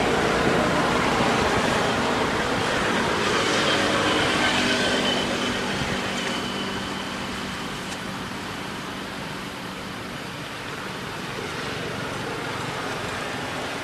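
Motor vehicle engine and traffic noise, a steady hum that fades about five seconds in as the vehicle passes.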